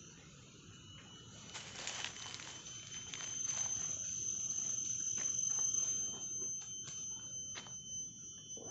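Forest insects calling in a steady high-pitched whine that swells to its loudest midway, with a second lower tone beneath it. Over it come rustling and short clicks of hands rummaging in a backpack.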